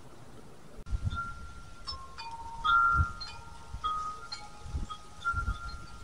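A wind chime ringing: its tubes struck at irregular intervals, several different notes overlapping and each ringing on, starting about a second in after a steady faint hiss. A few low thumps sound underneath.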